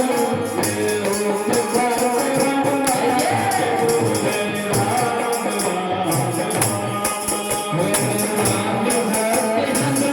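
Devotional kirtan music: a man's voice singing a melody over a steady jingling beat from hand percussion.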